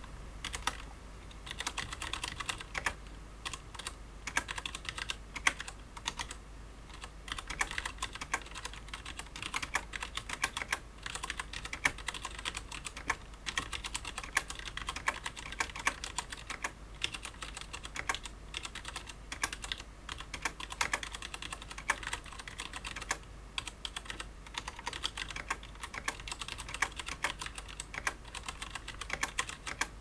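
Touch typing at about 60 words per minute on a KBParadise V60 Mini mechanical keyboard with tactile Cherry MX Clear switches: a dense, uneven run of key clacks with a few brief pauses.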